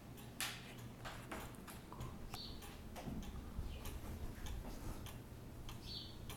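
Faint ticking of an antique Johann Baptist Beha Black Forest cuckoo clock's movement, a string of sharp clicks.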